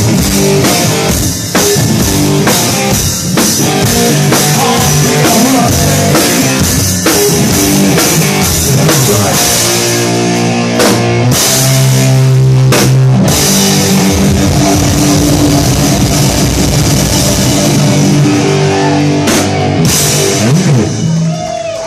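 Live rock band playing an instrumental passage: a loud electric guitar over a pounding drum kit with cymbals. The sound drops off near the end as the song winds down.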